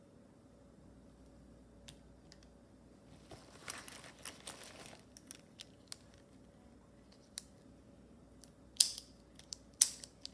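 Plastic pens and stationery being handled: a few light clicks and a stretch of rustling, then several sharp clicks, the two loudest about a second apart near the end, as the colour slider of a multicolored retractable pen is pressed down.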